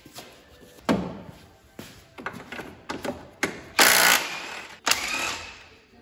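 Cordless impact wrench hammering in one short burst on a bolt about four seconds in, between sharp knocks and clanks of car body parts being handled.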